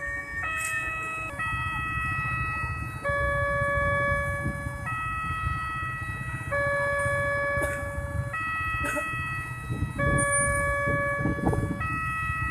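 Level-crossing warning siren sounding an electronic tone that steps between a few pitches about every two seconds, over a low rumble of waiting motorcycle traffic.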